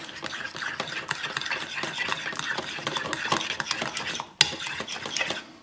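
Metal spoon stirring a thick mayonnaise-and-yogurt sauce in a ceramic bowl: continuous scraping with small clinks of the spoon against the bowl, and one sharper clink about four and a half seconds in.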